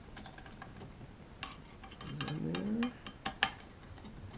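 Screwdriver turning long screws by hand into a lock's steel backing plate: scattered small metallic clicks and taps, a brief rising tone a little after two seconds, and two sharp clicks about three seconds in.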